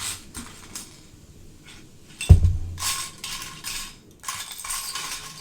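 Loose plastic Lego pieces clattering as they are rummaged through and picked up, with one loud thump about two seconds in.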